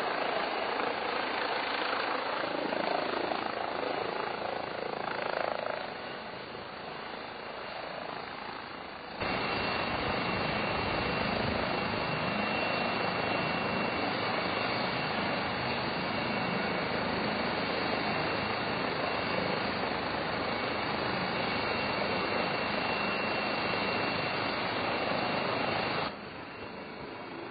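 Helicopter running close by, its rotor and turbine making a steady rushing noise. About a third of the way in it jumps louder and a faint high steady whine comes in. It drops away abruptly near the end.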